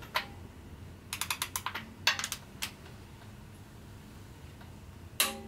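Ratchet of a torque wrench on cylinder head bolts: a quick run of ratchet clicks about a second in, a few more clicks soon after, and a single sharp click near the end.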